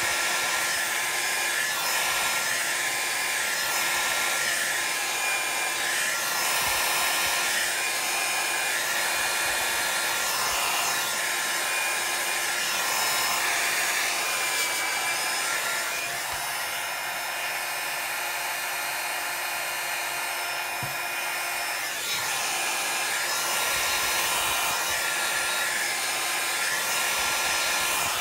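Handheld hot-air tool blowing steadily over wet alcohol ink on paper, a continuous whir with a thin high whine in it. It drops a little in loudness for a few seconds past the middle, then comes back up.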